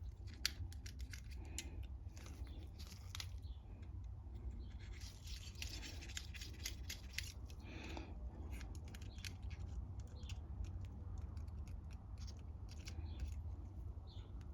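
Faint, irregular small metallic clicks and scrapes from a carburettor jet-cleaning wire being handled and worked against the carburettor's small brass parts, clustered in the first half, over a low steady hum.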